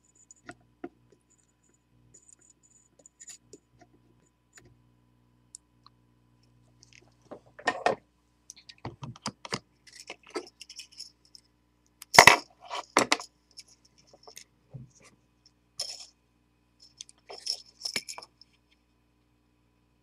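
Light metallic clicks and clinks of small parts and wire being handled against a metal bench block, in scattered clusters, the loudest a little past the middle.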